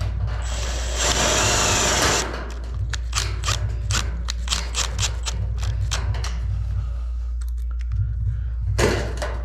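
Steel stud framing work: a power tool whirs for about two seconds near the start, then a run of sharp metallic clicks about three a second, and a louder clatter near the end.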